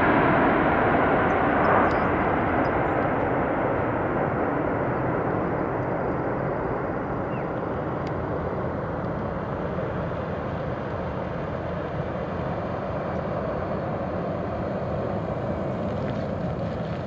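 Airbus A380's four Rolls-Royce Trent 900 jet engines at takeoff thrust as the airliner climbs away: a steady, broad jet roar that slowly fades and grows duller.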